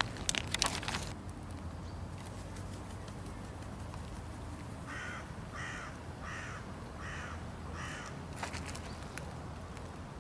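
A bird gives a run of about six short, harsh calls, roughly two a second, midway through. A few sharp clicks and crunches come right at the start.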